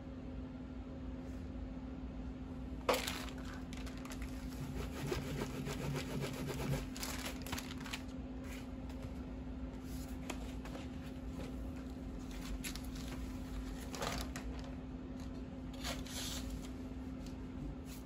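A sheet of printing paper rustling as it is peeled off an inked woodblock and handled, with a sharp tap about three seconds in and a few louder rustles later. A steady low hum runs underneath.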